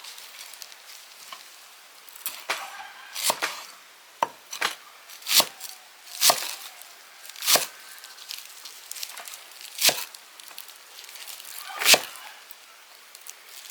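Chopping on wood: a series of sharp knocks, some in quick pairs, roughly one a second.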